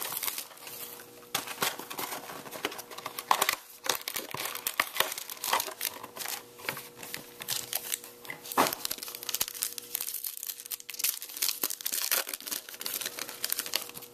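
Foil trading-card pack wrapper crinkling and tearing as it is ripped open by hand: a dense run of sharp crackles.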